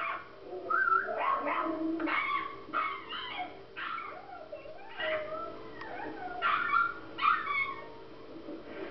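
Dog whimpering and yipping: a run of short, high, wavering calls with brief pauses between them.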